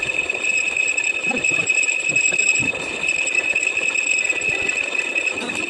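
Machinery running steadily: a constant high whine over an even mechanical hum.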